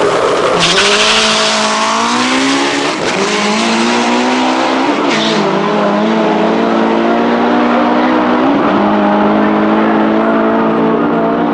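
Turbocharged, built R53 Mini Cooper S 1.6-litre four-cylinder engine at full throttle on a quarter-mile drag run. Its pitch climbs through each gear and drops at three upshifts, about three, five and eight and a half seconds in.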